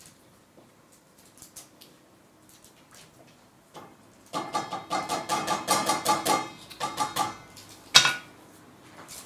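Spoon stirring and scraping rapidly in a cooking pot: a fast clatter of strokes with a ringing note. It starts about four seconds in, lasts about two seconds and comes back briefly a second later. It ends with one sharp clank.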